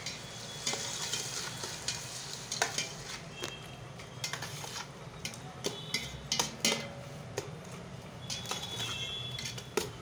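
A steel ladle stirring and scraping chicken pieces around a stainless-steel pot, with irregular clinks and knocks against the metal and a light sizzle of the frying masala underneath.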